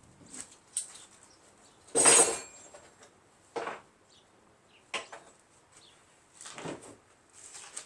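About six separate metal clanks and knocks from handling a lawn tractor seat and its metal mounting parts, the loudest about two seconds in.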